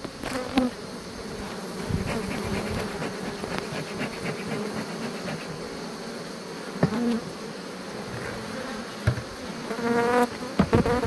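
Honeybees buzzing steadily around an open hive, with a few short knocks from the hive being handled.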